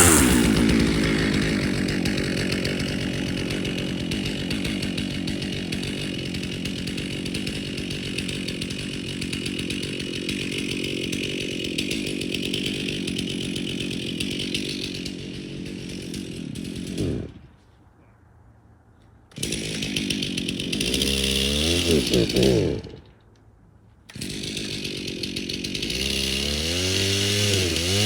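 Stihl MS362 two-stroke chainsaw running, then cutting out about seventeen seconds in. Restarted about two seconds later, it revs up and dies again, then is restarted and revs near the end; the owner puts the trouble down to gas that is too old.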